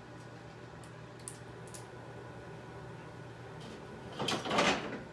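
Bird toys being handled on a PVC play stand: a few faint clicks, then a brief scraping rattle about four seconds in.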